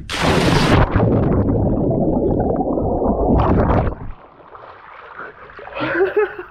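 A person and the camera plunge into a swimming pool: a loud splash on entry, then about three seconds of muffled bubbling and rumbling with the microphone under water. It breaks the surface about three and a half seconds in to softer lapping and sloshing, and near the end a short exclamation from the swimmer.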